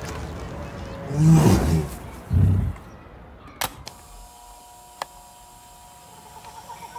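A large animal roars about a second in, followed by a shorter, deeper grunt. Then two sharp clicks of a portable cassette player's buttons, and faint repeated chirps begin near the end.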